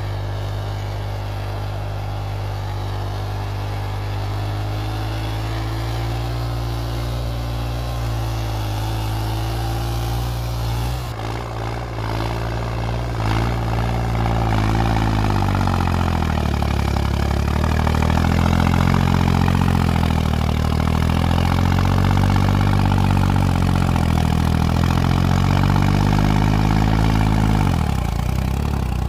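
Modified New Holland 3630 tractor's diesel engine working under load, pulling a heavy disc harrow. The note is steady at first, then louder from about halfway through, with the engine speed rising and falling repeatedly before easing off near the end.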